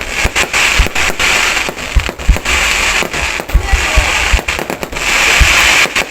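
Fireworks going off: a continuous dense crackle with many sharp bangs and deep booms in quick succession.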